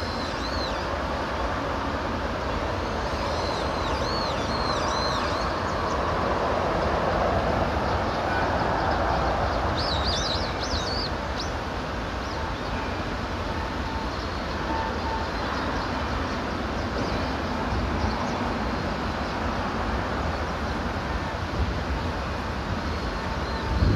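Steady background rumble and hiss, with birds chirping briefly at several points, most notably a quick run of chirps about ten seconds in.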